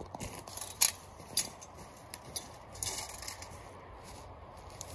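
Footsteps on a forest floor thick with dry pine needles: a handful of separate sharp crunches and scuffs.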